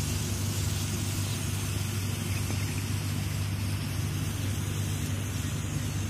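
Steady low rumble with an even hiss over it, like distant road traffic.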